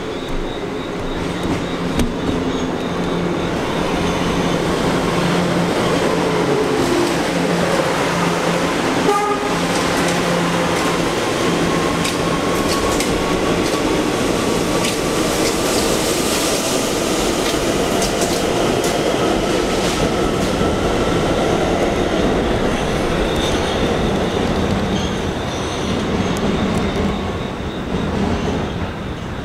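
Five-car Kawasaki R211A subway train running past along the platform. Its wheels clack over the rail joints and its motors whine with a pitch that rises slowly through the middle. The noise falls away near the end as the train leaves.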